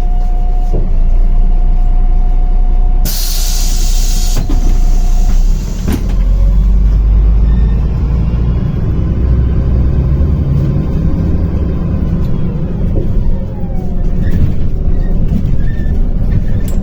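Inside a MAZ-105 city bus: a loud hiss of compressed air about three seconds in, over a steady whine. Then the engine picks up, with whines rising as the bus gets going.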